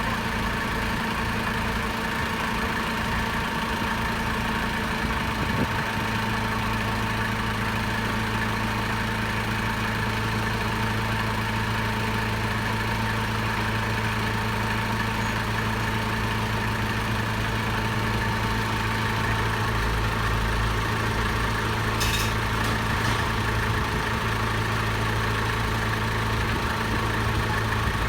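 Nissan 3-ton forklift's engine idling steadily at an even pitch, with a brief light click about three-quarters of the way through.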